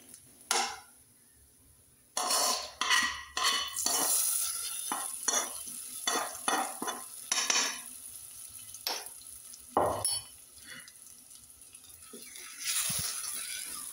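A metal spoon scraping and knocking against a non-stick wok as a fried coconut-and-mustard-seed tempering is scraped out into a clay pot of curry, with a sizzle as the hot tempering hits the curry. Near the end, a wooden spoon stirs it in over a softer sizzle.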